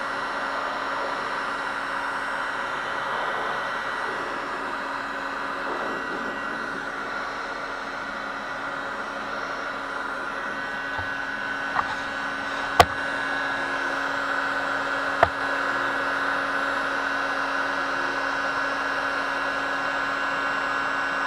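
Wagner electric heat gun blowing a steady stream of hot air, its fan motor whirring with a steady hum. A few sharp clicks come near the middle.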